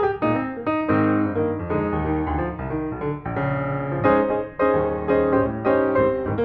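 Background piano music with a steady run of struck notes.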